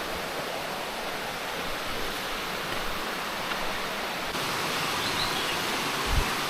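Rushing water, a steady even rush that gets slightly louder about four seconds in, with a short low thump near the end.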